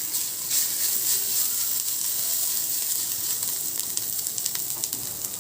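Finely chopped garlic, ginger and green chillies frying in a little ghee in a kadhai: a steady sizzle with scattered small crackles.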